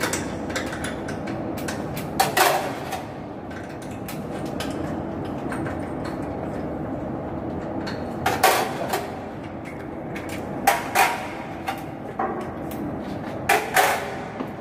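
Sharp metal clanks and knocks from tools and bolts against an exhaust blower fan motor and its mounting as the motor is fitted in place, coming in about four short clusters with brief ringing, over a steady background noise.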